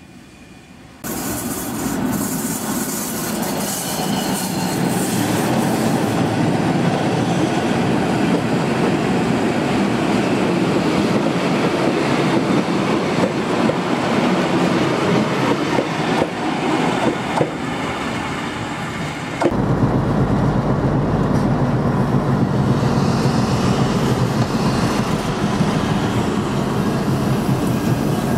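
Passenger train of red coaches hauled by the E422 electric locomotive passing close, its wheels rumbling and clattering over the rails. The sound changes abruptly about two-thirds of the way through to a steadier, deeper rumble.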